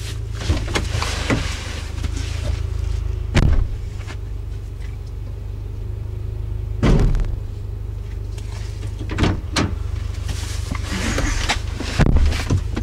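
Naturally aspirated 2009 Subaru Forester 2.5X flat-four idling with a steady deep rumble through aftermarket MagnaFlow mufflers. Two loud thumps, about three and a half and seven seconds in, with lighter knocks later: the hood and a door being shut.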